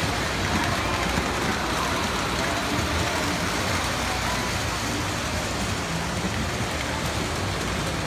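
Steady indoor background din with faint voices of people talking in the background.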